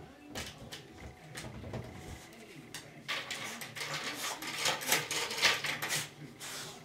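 Brass chain door guard on a kitchen cabinet rattling and clinking against the door as a dog works at it with her muzzle: a few light clicks, then a rapid clatter from about three seconds in that fades near the end.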